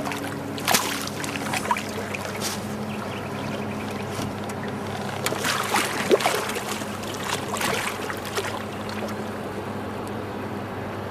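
Water splashing and sloshing in a few short bouts over a steady low hum, with occasional sharp knocks.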